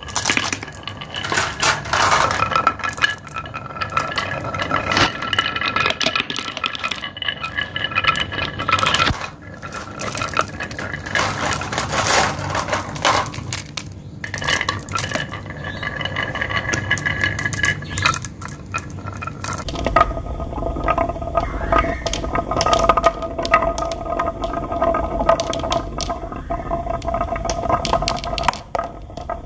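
Many glass marbles rolling down the zigzag grooves of a carved wooden marble run, a continuous rolling rattle with frequent sharp clinks as they knock into each other and the wood. About twenty seconds in the sound turns duller, with more low rumble.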